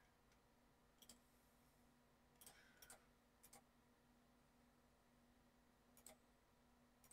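Faint computer mouse clicks, about five of them spaced irregularly, against near silence with a faint steady hum; the clicks fit placing the points of a polygonal lasso selection.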